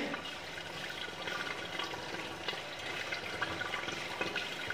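Water running steadily from a garden hose into a plastic tub, with small splashing flecks over the steady rush.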